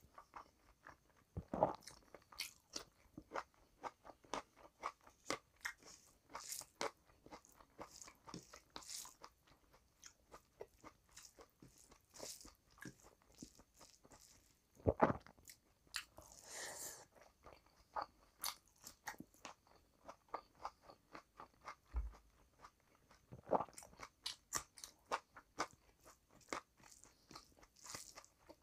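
A person chewing and crunching mouthfuls of rice and curry eaten by hand, with a steady run of small wet clicks. A few louder crunching bites come about a second and a half in, halfway through, and about three-quarters of the way through.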